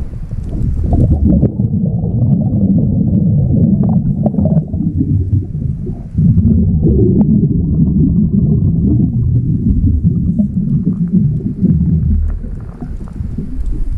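Underwater rumble and gurgle of a scuba diver's exhaled air bubbles, in long surges that break off briefly about halfway through and again near the end.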